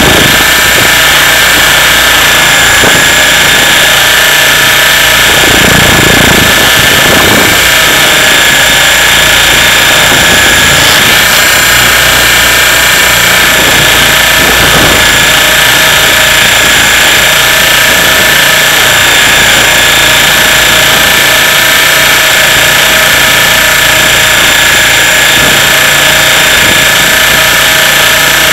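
Radio-controlled helicopter's motor and rotor running steadily in flight, heard close up from a camera carried aboard: a loud, unbroken high-pitched whine made of several steady tones.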